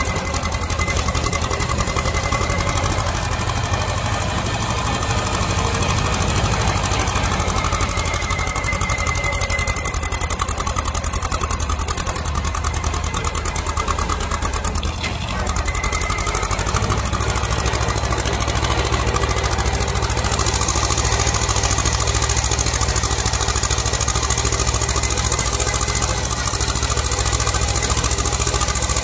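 The engine of a small belt-driven tractor is running steadily as the tractor drives along a road. It makes a fast, even chugging, with a brief dip about halfway through.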